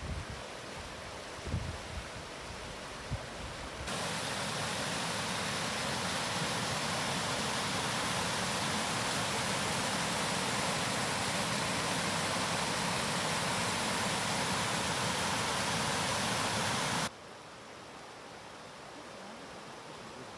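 Steady rush of water from a woodland stream and waterfall. It starts softer with a few low thumps, gets much louder about four seconds in, and drops abruptly to a quieter rush about three seconds before the end.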